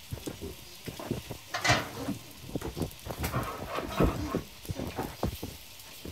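Wooden takoyaki picks clicking, knocking and scraping irregularly against a cast-iron takoyaki pan as the balls are turned, with one longer, louder scrape about a second and a half in.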